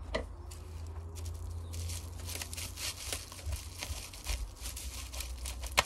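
Bubble wrap and plastic packaging crinkling and crackling in irregular ticks as a wrapped cactus pot is handled and unwrapped, with one sharp click near the end.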